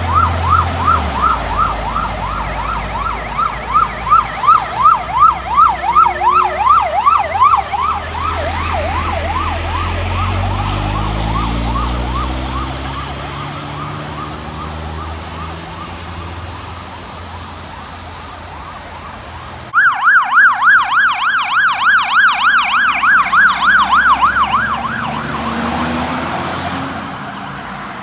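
Emergency vehicle sirens on a fast yelp. The first is loud, then fades as the vehicle moves away, with its engine heard rising underneath. It then switches suddenly to a second, louder yelp siren, from a fire engine, which also fades near the end.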